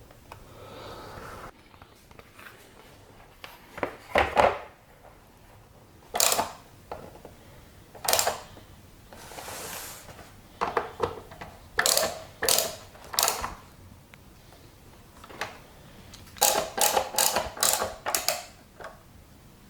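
Hard plastic and metal parts of a vehicle console armrest being handled and fitted together: irregular clicks, knocks and rattles, with a quick run of clicks near the end.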